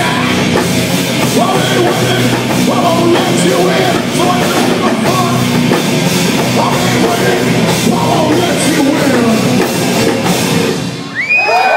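Live hard-rock band playing loud, with distorted electric guitar and a drum kit. The song ends about 11 seconds in, and shrill crowd cheers and shouts begin right at the end.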